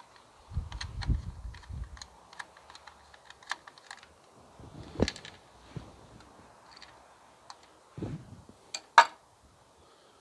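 Scattered small clicks and taps of a screwdriver and small metal parts being handled during electrical wiring work, with a few dull low thumps and one sharper, louder click near the end.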